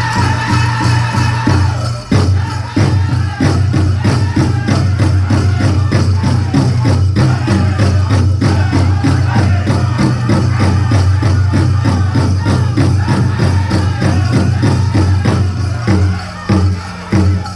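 Powwow drum group playing a chicken-dance song: a large shared drum beaten in a fast steady rhythm under the singers' voices, with the dancers' leg bells jingling. Near the end the steady beat breaks into a few separate beats with short gaps between them.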